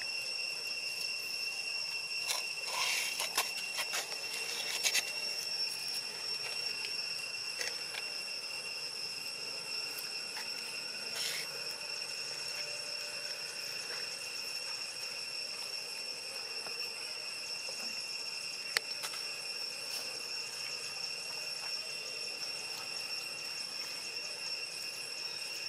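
Steady, high-pitched drone of insects, with a scatter of soft clicks and rustles in the first few seconds and one sharp click later on.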